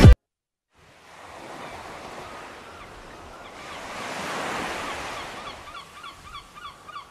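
Background music cuts off suddenly at the start, and after a moment a recording of ocean surf comes in, a steady wash of waves that swells about four seconds in and then eases. Over the last second and a half a run of quick, repeated bird calls sounds above the surf.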